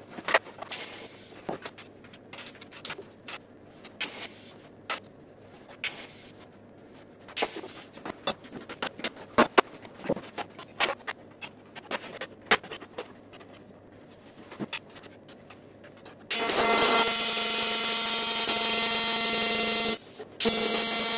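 Clinks and knocks of metal parts being handled and set up on a steel welding table, then an electric welding arc burning steadily with a buzz on metal tubing for about three and a half seconds, stopping briefly and striking again near the end.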